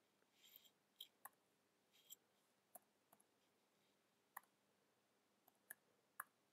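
Faint computer keyboard key clicks, about seven single taps at uneven intervals, as digits are typed one at a time.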